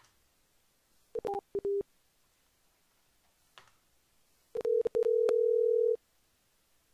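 Telephone call tones on the line: a few short beeps just after a second in, then a steady tone lasting over a second near five seconds in.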